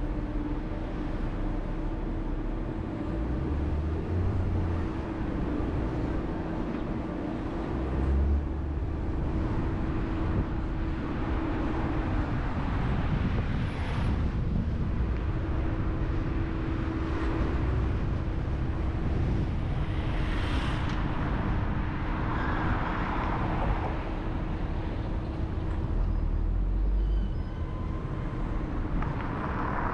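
A car driving through city traffic: a steady rumble of engine and tyres with a constant low hum, and a couple of brief whooshing swells from other vehicles in the second half.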